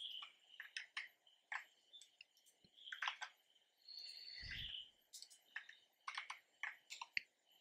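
Faint, scattered clicks of a computer mouse and keyboard, with a soft puff of air on the microphone about four and a half seconds in.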